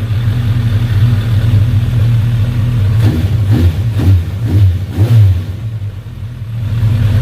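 Suzuki Bandit 1200S inline-four engine idling, then revved in several quick throttle blips before it drops back and settles to idle. All four cylinders are firing again with the carburettors back in sync, the cylinder-2 misfire cured.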